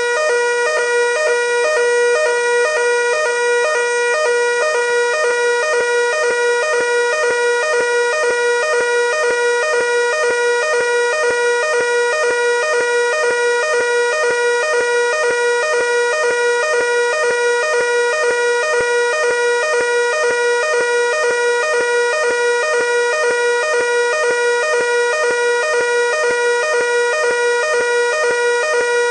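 Fire alarm evacuation signal: a loud, steady electronic tone that sounds without a break.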